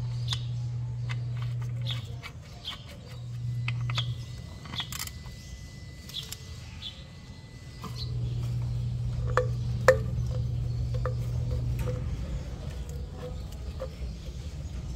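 Birds chirping, with scattered sharp metal clinks, one louder about ten seconds in, over a low hum that comes and goes.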